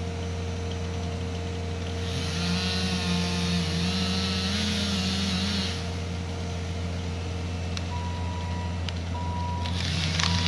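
Bobcat compact track loader's engine running, climbing to a higher, wavering pitch under load for a few seconds, then a backup alarm beeping from about two-thirds of the way through. Near the end, cracking and snapping of wood and brush starts.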